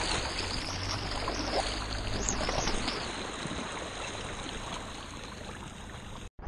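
Lake water rushing and splashing around the body of a floating ATV as it is towed through the water. It slowly gets quieter and cuts off abruptly near the end.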